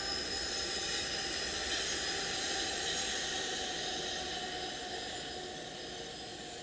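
BNSF double-stack intermodal freight train passing close by: the trailing diesel locomotives give way to container well cars, a steady heavy rumble of wheels on rail with thin, high, steady wheel squeal over it. The noise eases slightly towards the end.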